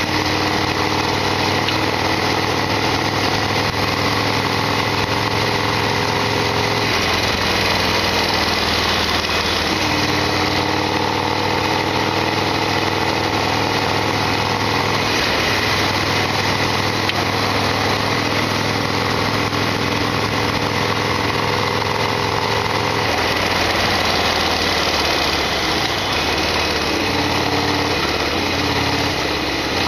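Harley-Davidson XL1200R Sportster's air-cooled 1200 cc V-twin running under way, its engine note stepping up and down in pitch a few times.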